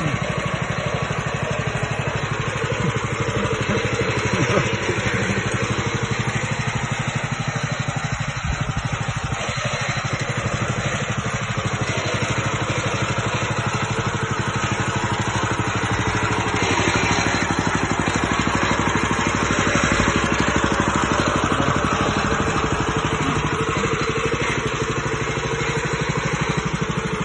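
Honda ZC100T mini tiller's small petrol engine running steadily at low throttle, its even firing pulses unbroken throughout.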